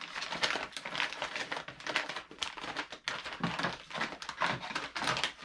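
Clear plastic packaging crinkling and rustling as it is handled and pulled open, in quick irregular crackles.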